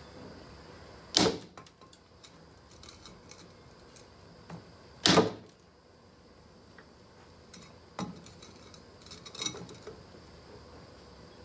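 Hammer blows on a wood block set over a piston seized inside a removed Cockshutt 40 cylinder sleeve, trying to drive the piston out. Two loud strikes about four seconds apart, then a few lighter knocks.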